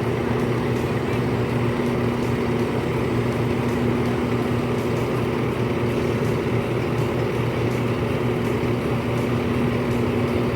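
A large bus's diesel engine idling steadily: an even low hum with a noisy rumble, no change throughout.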